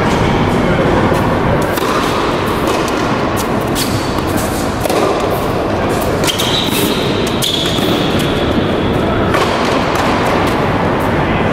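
Tennis rally in a large indoor hall: sharp, echoing thuds of rackets striking the ball over a steady background of hall noise. Sneakers squeal on the hard court for a few seconds past the middle, as a player runs for the ball.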